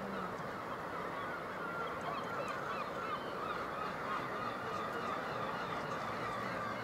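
Massed calling of a cliff seabird colony: many short, nasal, rising-and-falling calls from numerous birds overlapping continuously, over a steady background rush.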